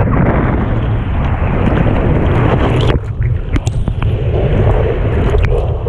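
Whitewater rushing and splashing around a surfboard as it is paddled into a breaking wave, with a heavy low buffeting rumble on the board-mounted camera's microphone. A few sharp ticks come in the second half.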